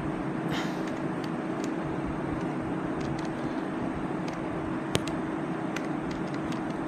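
Steady background noise with a low, even hum and a few faint, sharp clicks; the clearest click comes about five seconds in.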